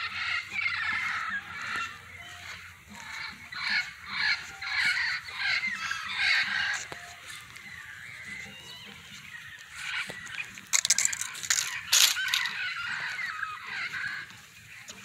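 Parrots squawking in harsh, repeated calls, with a louder, sharper stretch near the end.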